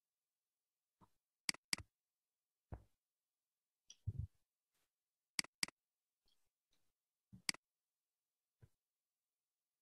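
Computer mouse buttons clicking: three quick double-clicks and a few single clicks, with a duller low knock about four seconds in.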